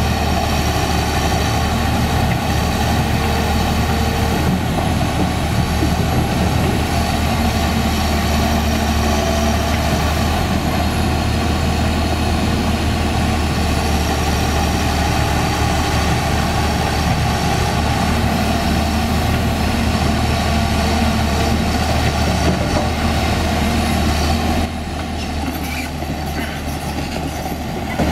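Diesel engine of a CAT 320D2 hydraulic excavator running steadily with a deep, even hum. It turns somewhat quieter about 25 seconds in.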